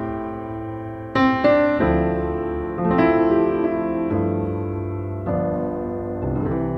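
Background music: a slow piano piece, with sustained chords and a new chord or note struck about once a second.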